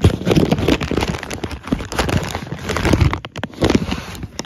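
Continuous crackling and rustling close to the microphone, dense with small clicks: packaging being handled and opened.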